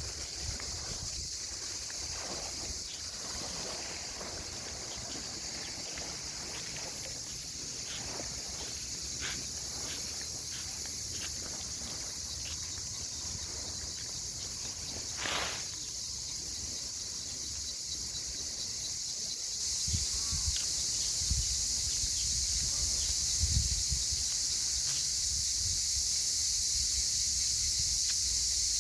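Cicadas droning steadily, growing louder about two-thirds of the way through, with wind rumbling on the microphone.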